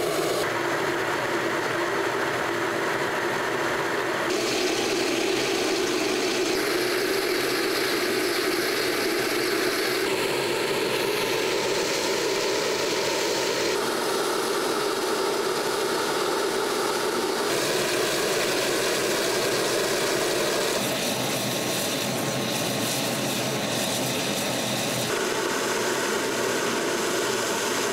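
Engine of an S-300V tracked missile launcher running steadily at idle, a dense, even mechanical noise whose tone shifts a little every few seconds.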